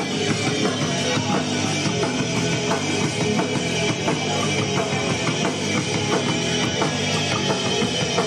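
Rock band instrumental take with electric guitar, bass and drum kit playing steadily.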